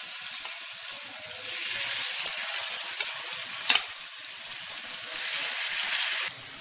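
Marinated king fish pieces sizzling in hot coconut oil in a frying pan, the sizzle swelling as each new piece goes in. A couple of light clicks about three seconds in.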